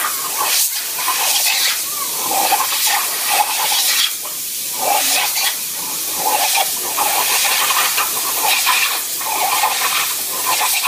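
Compressed air blowing out of an air compressor's hose: a loud, continuous hiss that wavers in loudness.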